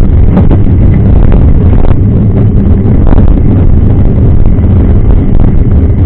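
Steady loud rumble of wind buffeting the microphone as a mountain bike rolls along a gravel dirt road, mixed with knobby-tyre and gravel noise and a few brief rattling clicks.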